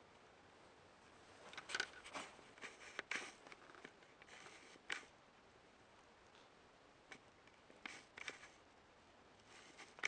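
Near silence in a small room, broken by scattered short rustles and clicks that come in about five brief clusters.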